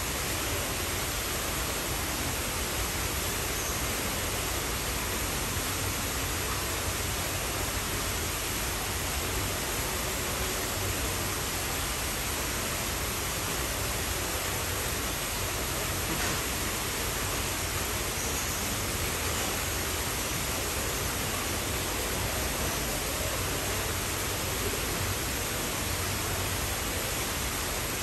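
Steady, even rushing noise with no distinct splashes, calls or other events.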